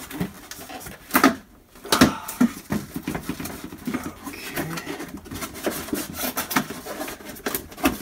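Plastic back panel inside a Samsung refrigerator being pried loose by hand: a run of clicks, knocks and creaks as it pops out of its clips, the loudest about one and two seconds in.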